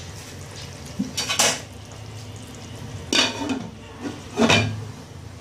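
A glass pot lid with a steel rim being set onto a steel cooking pot: three short clinks and clatters of lid and pot, with a brief ring after each.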